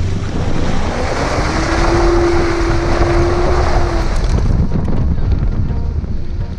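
Off-road vehicle engine running under throttle through wet, slippery ground, with heavy wind buffeting on the microphone; a steady held tone rises in about a second in and holds until about four seconds in.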